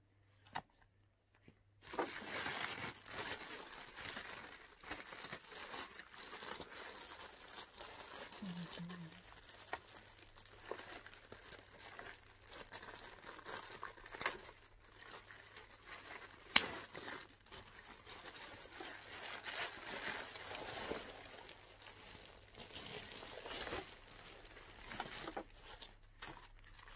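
Plastic packaging bags crinkling and rustling as they are handled and opened, with a couple of sharp clicks; it starts about two seconds in.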